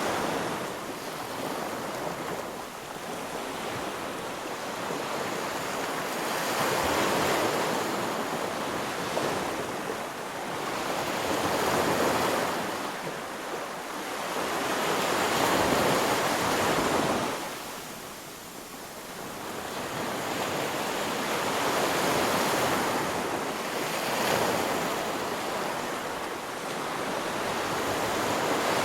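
Waves surging and washing, a rushing noise that swells and eases every few seconds.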